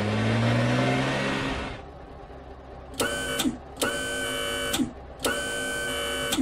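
Cartoon sound effects: a car engine revving up for about the first two seconds, then three short mechanical whirrs, each starting and stopping abruptly, like an electric motor driving the car carrier's ramp.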